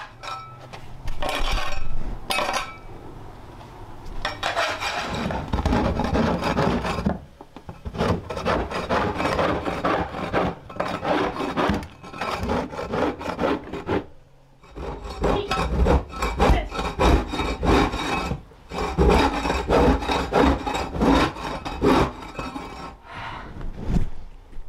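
Long-handled floor scraper scraping caked cat waste and debris off a bare floor, in long runs of strokes with brief pauses between them.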